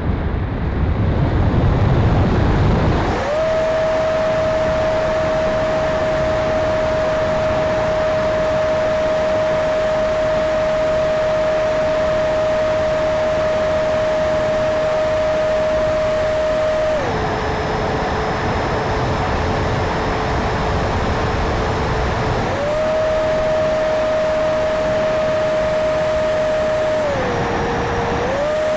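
Electric ducted fan of a Freewing F-35 RC jet, heard from an onboard camera: a steady high whine over wind rush. The whine cuts out just after the start with a low rumble and returns about three seconds in. It drops to a lower pitch for about five seconds past the middle and briefly again near the end as the throttle is eased.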